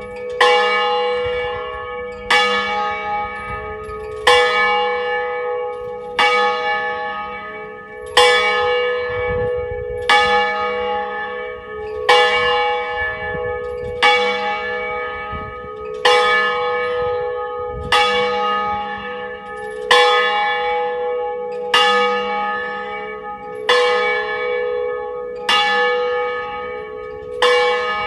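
A single church bell in the tower of San Donato, Barolo, swung full in the Ambrosian style and rung a distesa for noon. Its clapper strikes about once every two seconds, each stroke ringing on and fading into the next.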